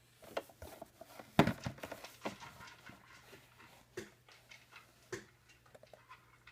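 Irregular clicks and knocks of a small plastic tripod being handled and folded, the loudest about one and a half seconds in.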